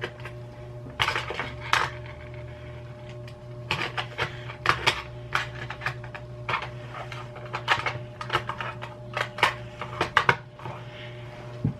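Irregular clicks and clatter of small hard objects being handled, over a steady low hum.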